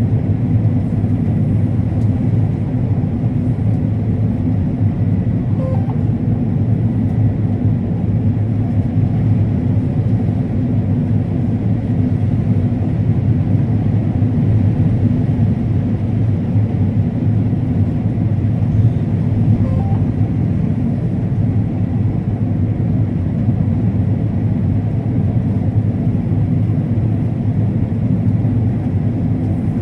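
Combine harvester running steadily in corn: a loud, even engine-and-machinery drone with a deep hum that does not change.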